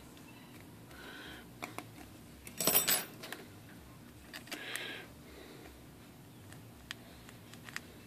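Small metal parts and tools clicking and scraping as a typewriter mainspring's spring end and drum are handled, with one louder metallic clatter about three seconds in.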